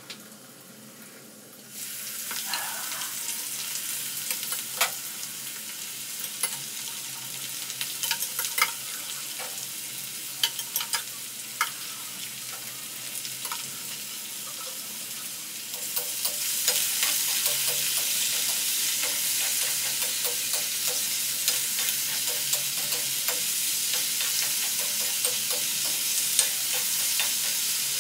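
Sliced potatoes frying in hot oil in an iron kadhai: a steady sizzle that starts about two seconds in, when they are tipped into the oil, and grows louder about halfway through. Scattered sharp clicks and scrapes of a metal spoon in the pan as the potatoes are stirred.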